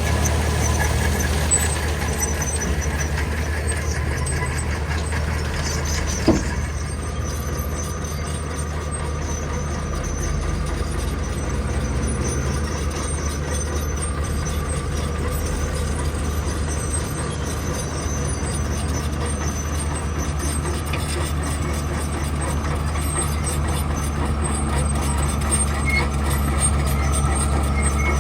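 Heavy diesel construction machinery running steadily with a deep, even engine drone. One sharp knock comes about six seconds in.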